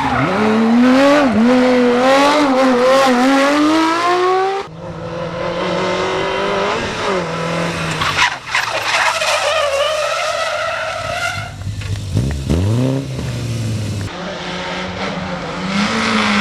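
Rally cars driven flat out, engines revving up and dropping sharply again and again at each gear change and lift, with tyre noise from the cars sliding. Several separate cars pass in turn.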